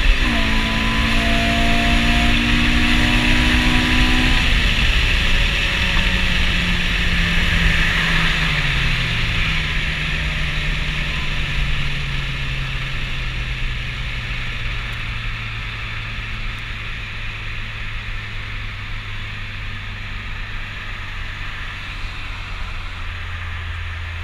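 Car engine heard from inside the cabin at full throttle in a roll race: an upshift right at the start, revs climbing for about four seconds, then the throttle comes off. The engine note falls away and settles into a steady low drone as the car slows, under loud wind and road noise that gradually fades.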